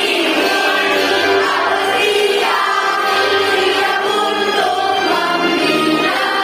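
Student choir singing a school march in unison over instrumental accompaniment.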